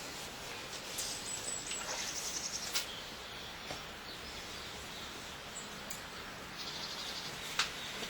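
Steady outdoor background noise with small birds chirping high-pitched now and then, and a few sharp clicks.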